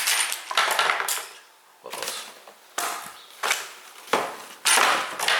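Small lock hardware parts and their packaging being handled: a series of short rustles and clacks, about one every half second to a second.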